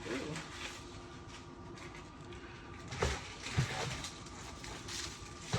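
Groceries being handled and set down on a kitchen surface: a few short knocks about three seconds in and again near the end, with light rustling over a faint steady hum.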